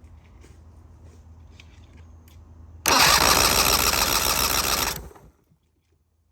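Three-cylinder two-stroke outboard motor turned over on its electric starter for about two seconds, very loud, then stopping abruptly: cranking for a compression test.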